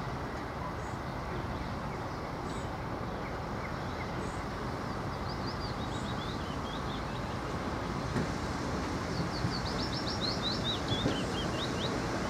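A small shunting locomotive's engine running steadily as it approaches slowly along the track, growing gradually louder, with a few light knocks in the second half. Songbirds chirp at intervals, with a quick run of chirps near the end.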